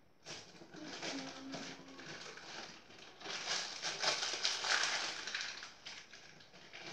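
Rustling and rummaging as things are moved about inside a kitchen cupboard, an uneven crackly noise that grows louder around the middle.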